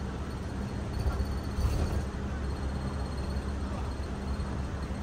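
Bus cabin noise: a steady low rumble of engine and road with a constant hum, and a couple of small bumps a little after a second in.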